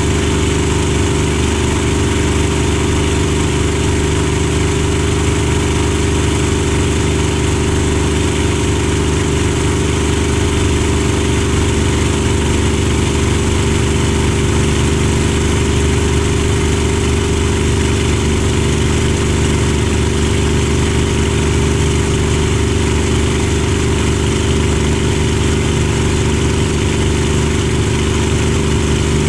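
Supermarine Spitfire's Rolls-Royce Merlin V12 engine running at steady, unchanging power in flight, with a constant rush of air over the airframe.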